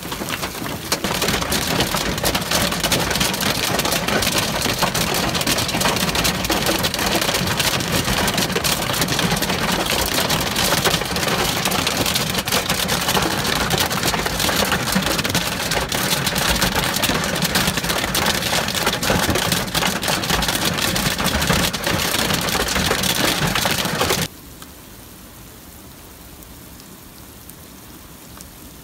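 Hail pelting a vehicle's body and windshield, a loud, dense, continuous clatter of impacts. About 24 seconds in it cuts off suddenly to a much quieter steady hiss of rain.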